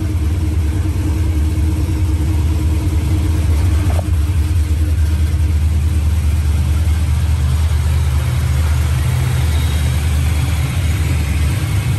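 A 1991 Fox-body Mustang's supercharged V8 idling steadily, running on a newly wired slot mass air flow sensor.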